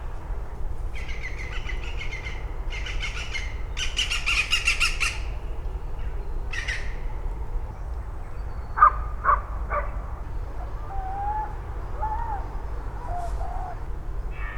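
Woodland birds singing: several bursts of rapid, high, trilling song in the first five seconds and another shortly after, three sharp calls about nine seconds in, then softer, lower whistled phrases, over a steady low rumble.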